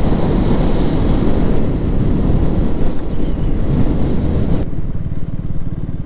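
Wind rushing over the helmet microphone while riding a KTM Duke 200, with the motorcycle's single-cylinder engine running underneath. About three-quarters of the way through, the wind noise cuts off abruptly, leaving the engine's steady low pulsing.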